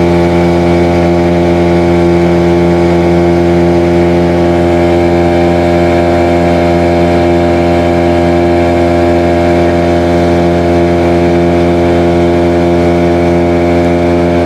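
Outboard motor of a small boat running at a steady cruising speed, one unchanging drone with no rise or fall in pitch.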